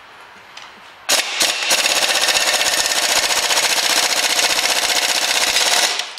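Impact wrench hammering in one rapid, continuous rattle on a long extension, working at a stubborn bolt on a front wheel hub. It starts about a second in and stops near the end.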